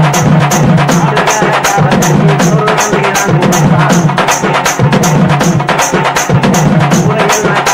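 Background music with a fast, steady percussion beat, about four ticks a second over a low drum line.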